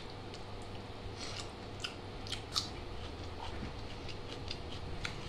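Fingers mixing rice with chicken curry on a plate and picking up mouthfuls: a scatter of small, sharp wet clicks and smacks, a few louder ones midway.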